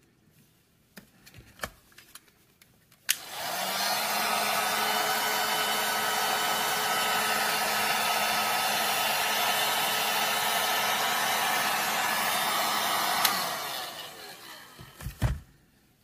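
Electric heat gun switched on with a click and blowing steadily for about ten seconds while shrinking heat-shrink tubing over a crimped wire connector. It is then switched off with a click and its fan winds down. A few light handling clicks and knocks come before and after.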